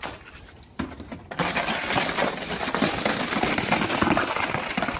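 Dense scraping and crunching on icy, crusted snow, starting about a second and a half in, as a dog shoves a round black object across it.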